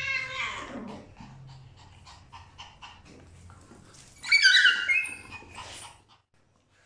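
A small dog and a cat scuffling on a tiled floor: a falling yowl at the start, scattered clicks of claws on the tiles, then a loud, high-pitched squealing cry about four seconds in, the loudest sound, which stops suddenly about six seconds in.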